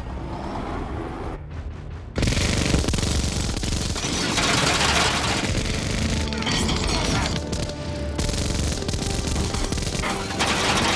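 Minigun firing in long, continuous streams of very rapid shots, starting abruptly about two seconds in, over film score music.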